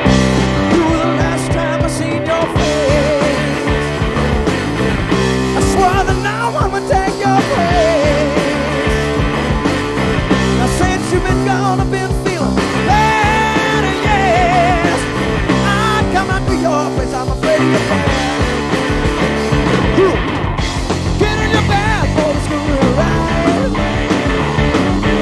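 Loud 1970s hard rock played by a band: electric guitar, bass and drums, with lead notes that bend and waver in pitch.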